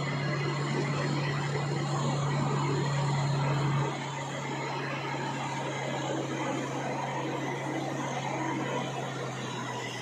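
Truck engine running with a steady drone heard from inside the cab, over a wash of road and engine noise; the engine hum drops in level about four seconds in.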